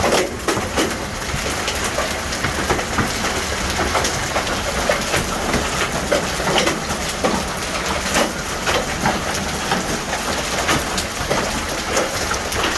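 Hailstones pelting down all around, a dense steady noise peppered with many sharp individual impacts. This is the hail core arriving overhead.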